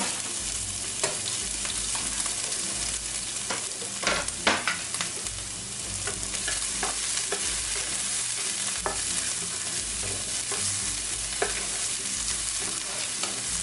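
Sliced onion sizzling in hot oil in a nonstick frying pan, with a steady hiss and scattered clicks and scrapes from a wooden spoon stirring it.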